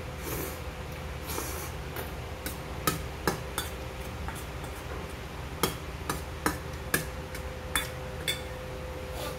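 A metal spoon clinking and scraping against a stainless-steel bowl while gathering up the last jjajang noodles: a string of short, sharp, ringing clinks, most of them in the second half.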